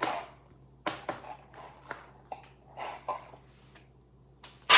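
Hands handling Pokémon cards and plastic and foil packaging: a string of short clicks and rustles, then a louder crinkle near the end.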